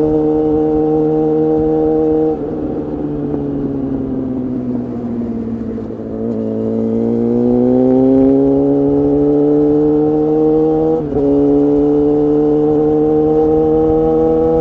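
Suzuki GSX-R750 inline-four engine through an Akrapovic exhaust pipe and Spark silencer, running under load. The note holds steady, falls slowly in pitch for a few seconds, climbs back up and holds, with a brief sharp dip in pitch and loudness about eleven seconds in.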